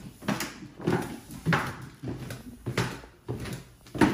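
Footsteps going down wooden stairs at a steady walking pace, about seven steps a little more than half a second apart, the last one near the end the loudest.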